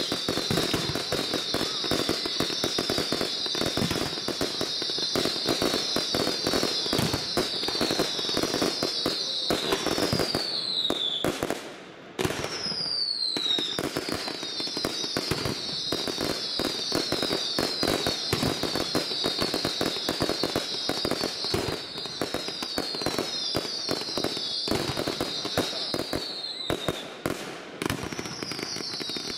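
Fireworks barrage: dense, rapid cracks and bangs from bursting shells and rockets, over a continuous chorus of shrill whistles that fall in pitch. There is a brief lull about twelve seconds in, then the barrage resumes.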